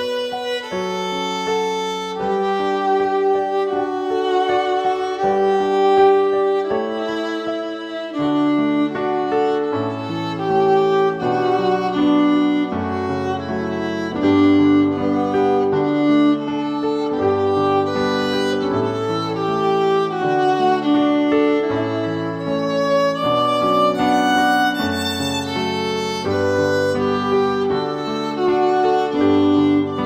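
Instrumental background music carried by a violin melody of held notes, with a lower accompanying line joining about eight seconds in.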